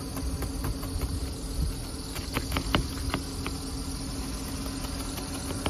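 Hand ice scraper chipping and scraping the ice crust off a car's windshield and roof, with a few sharp scrapes and cracks between two and three and a half seconds in. Under it runs a steady low hum from the car's engine idling to warm up.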